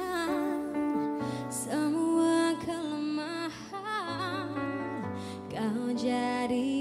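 A slow love ballad: a singing voice holding notes with vibrato over piano or keyboard accompaniment and a bass line.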